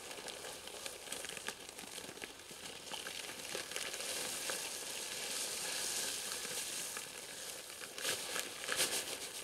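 Dry material poured from a bag around the base of a post: a steady hissing rustle, with the bag crinkling and scattered small ticks that thicken near the end.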